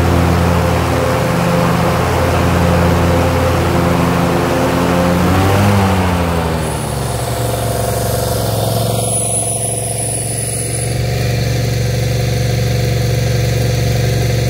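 Dixie Chopper zero-turn mower engine running steadily. About five seconds in, its pitch bends and shifts as the mower moves off, then it settles back to a steady run.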